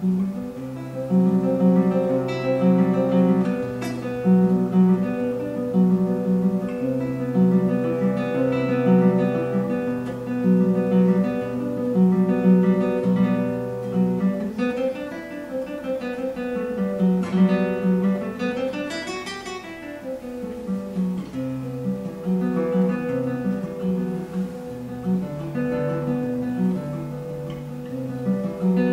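Solo classical guitar played fingerstyle: a repeating figure of plucked bass notes under a held higher note, with a passage about halfway through where notes slide up and down in pitch.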